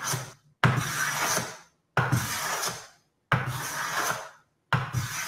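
Hand smoothing plane cutting shavings from a wooden board in repeated push strokes: the tail of one stroke, then four more, each starting sharply and fading out, about one every 1.3 seconds. The iron has just been advanced a little, so it takes slightly more substantial shavings than a very fine setting.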